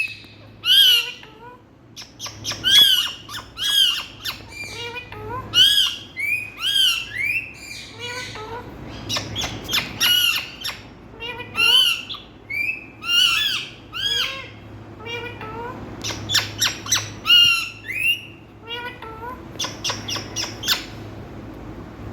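Indian ringneck parakeets squawking repeatedly, harsh rising-and-falling calls about once a second, over a low steady hum; the calls stop shortly before the end.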